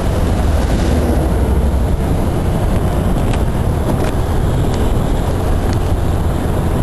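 Riding a motor scooter at road speed: a steady rush of wind on the microphone mixed with engine and tyre noise.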